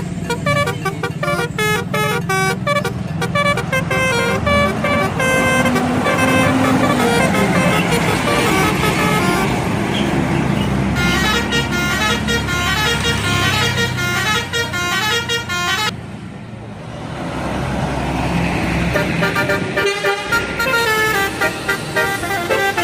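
Bus telolet horns, the multi-tone musical horns of Indonesian buses, playing quick stepping tunes over engine rumble. The tunes break off about sixteen seconds in, then another run of horn tunes starts.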